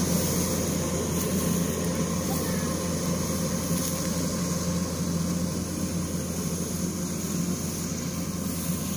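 Kubota DC-105X rice combine harvester running steadily while it cuts, a constant engine drone with a low hum. It slowly grows fainter as the machine moves away.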